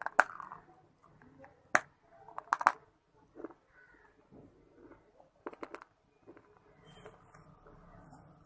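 A person biting into hard, dry clay and shale pieces: sharp crunching snaps at irregular intervals, about five in the first six seconds, the first the loudest, with softer chewing crunches between them.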